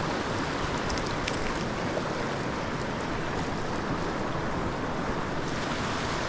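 Steady rushing of a creek's flowing water over riffles.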